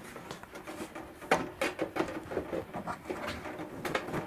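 Light taps and clicks of plastic sheet parts, a loose deck panel knocking against the plastic model hull as it is handled, several irregular knocks spread through.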